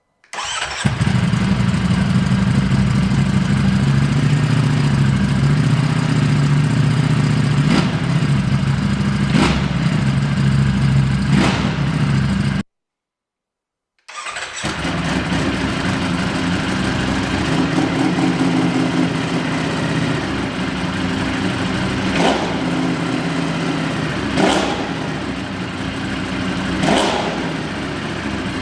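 Ducati Streetfighter V4S V4 engine idling with several quick throttle blips, in two separate recordings with a short silent cut between them, one heard through a QD aftermarket exhaust.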